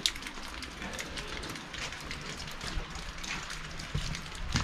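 Water dripping off the edge of a rock overhang: an irregular patter of drops over a steady wash of running water, with a couple of low thumps near the end.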